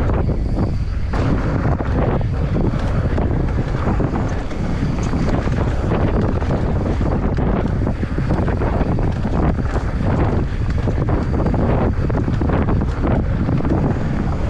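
Wind rushing over an action camera's microphone on a fast mountain bike descent, mixed with the rumble and clatter of the bike rolling over a dry, dusty dirt trail.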